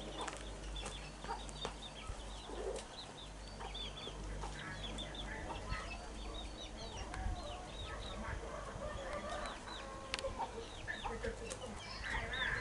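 Chickens clucking, with many short high chirps repeating throughout and a few sharp clicks.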